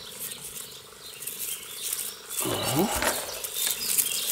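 Hands handling a clump of young hemp palm (Trachycarpus fortunei) seedlings in moist garden soil: scratchy rustling and crackling of earth, roots and stiff leaves as the clump is lifted and pressed into the planting hole, over a faint steady hum.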